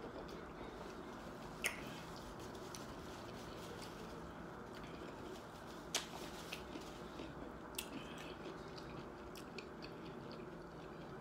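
Faint chewing and mouth sounds of a person eating a taco, with a few scattered sharp clicks over a steady low hiss.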